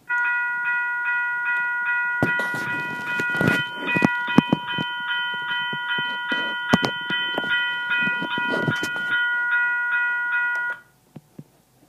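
Recorded sample of an electronic railroad crossing bell: a quick, even ding-ding-ding of a ringing tone with several overtones. It cuts off suddenly about eleven seconds in. Irregular knocks and clicks sound under the middle part.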